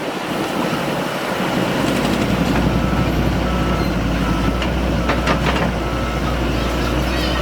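Back-up alarm on heavy earthmoving machinery beeping steadily, about three beeps every two seconds, starting a couple of seconds in, over the steady rumble of a diesel engine, with a few brief clanks near the middle.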